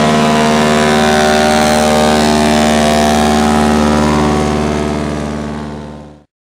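Single-engine floatplane's propeller engine running at full power on its takeoff run across the water, a steady pitched drone that fades out over the last two seconds and then stops.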